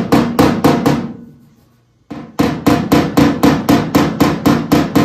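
Body hammer tapping lightly and quickly on the bare sheet-steel quarter panel of a car, about four or five taps a second, each with a short metallic ring: moderate blows to work small high spots down before body filler, with no dolly held behind the panel. The tapping stops about a second in and starts again after a pause of about a second.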